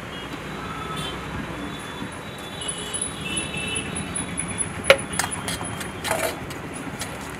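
A steel spoon clinking against a small steel bowl as a snack mixture is stirred, a few sharp clinks with the loudest about five seconds in, over steady street-stall background noise.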